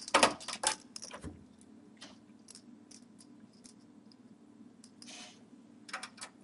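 Light metal clicks and clinks from small motherboard screws and a magnetic Phillips screwdriver being handled and driven into the standoffs: a quick run of clicks in the first second or so, then scattered single clicks, a brief scrape about five seconds in, and a few more clicks near the end.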